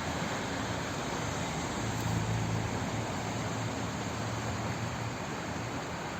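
Steady flowing water, an even wash of noise with a slight swell in the low end about two seconds in.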